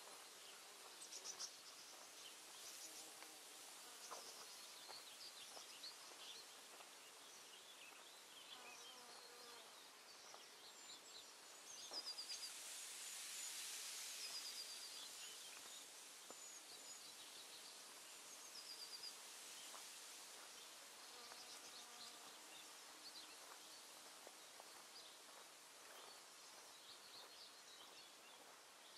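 Near silence: faint background with a high hiss and a few small, high chirps.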